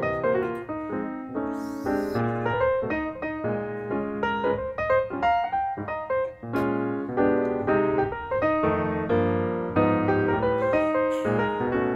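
Background piano music: a steady, quick flow of notes and chords.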